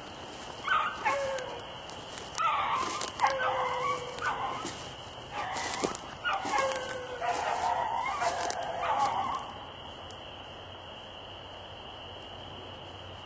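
Beagles baying as they run a rabbit: drawn-out howls that fall in pitch, coming in overlapping clusters and stopping about nine and a half seconds in. Dry brush crackles alongside.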